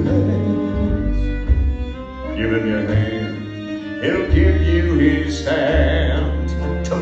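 Live stage-musical pit band playing: bowed strings over long, deep bass notes, with a singing voice woven through.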